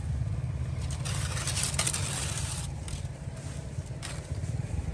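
Dry corn stalks and leaves rustling in two bursts, one about a second in and lasting over a second, a shorter one near the end, over a steady low rumble.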